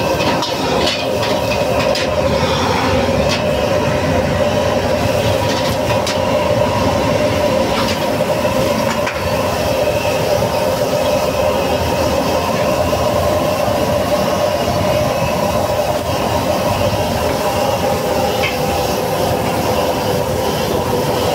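High-output gas wok burner running at full flame, a steady rush, with food sizzling and bubbling in the wok. A metal ladle clicks and scrapes against the wok a few times in the first seconds and again around eight to nine seconds in.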